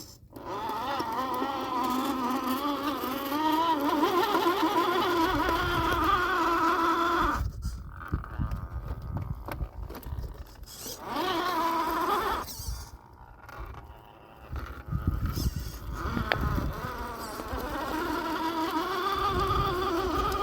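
Axial SCX10 II RC crawler's electric motor and geared drivetrain whining as it is driven, the pitch rising and falling with the throttle. The whine stops twice for a few seconds, with low rumbling underneath at times.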